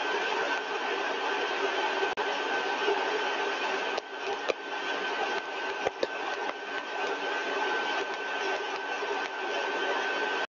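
Axial compressor test rig running steadily at 80% of design speed: a rushing airflow noise with a steady high-pitched whine on top. A few faint clicks come in about halfway through.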